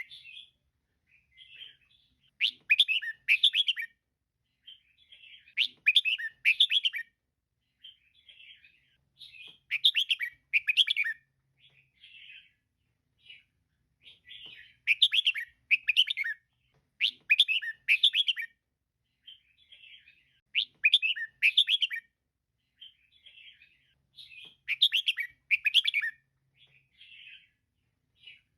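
Female red-whiskered bulbul calling: loud, quick chattering phrases about every three to four seconds, with softer twittering between them.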